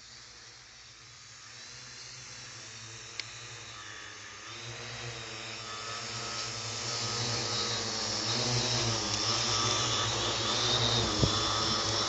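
Whine of small electric motors, with a wavering pitch as they speed up and slow down. It grows steadily louder through the second half, with a sharp tick near the start and a thump near the end.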